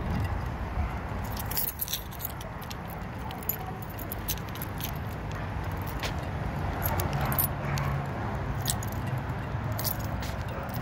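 A bunch of keys jingling and clinking irregularly while being carried on a walk, over a steady low rumble.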